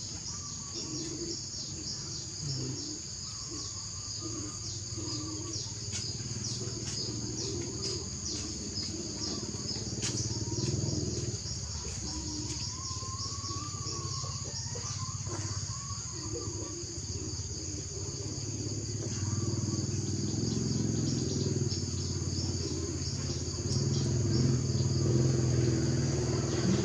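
Steady high-pitched drone of an insect chorus, with a low background rumble that grows louder toward the end.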